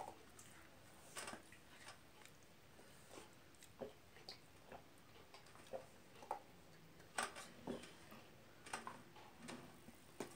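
Faint eating sounds by hand: scattered soft clicks and taps of fingers picking rice off a china plate, with chewing, and a few sharper clicks a little past the middle.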